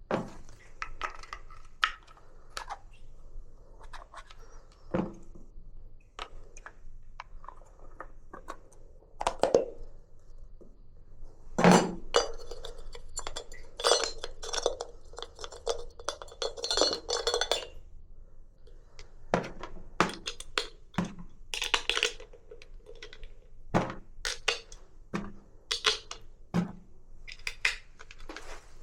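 Hand tools and small metal parts clinking and knocking as they are handled and set down, in scattered single knocks with a denser stretch of clattering and rattling in the middle.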